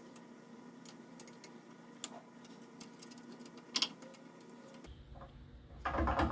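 Hex key working the bolts of aluminium soft jaws on a steel machining vise: scattered light metallic clicks, then a louder metal clatter near the end.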